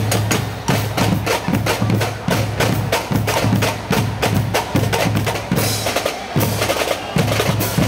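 Marching band drum line playing a steady cadence: rapid snare-drum strokes over a low beat about twice a second.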